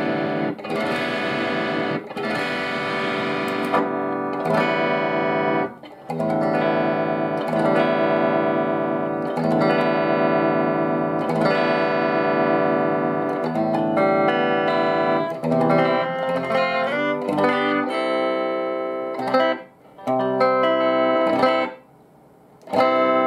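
Electric guitar chords played through a Marshall Valvestate combo amp, ringing out and stopping briefly about six seconds in and twice near the end. The amp is sounding again after a cracked solder joint on its circuit board, likely the cause of its loss of sound, was repaired.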